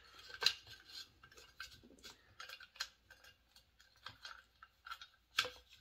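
Small metallic clicks, ticks and scrapes as the muffler is worked loose and taken off a Husqvarna 266 SE chainsaw, with a sharper knock about half a second in and a louder one near the end.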